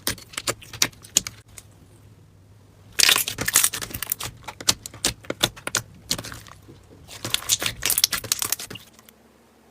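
Slime being squished and worked, giving sharp sticky clicks and crackling pops, with two dense runs of crackling about three and seven seconds in.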